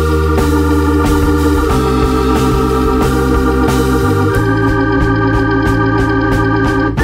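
Background instrumental music: sustained organ chords that change every couple of seconds, over a steady beat.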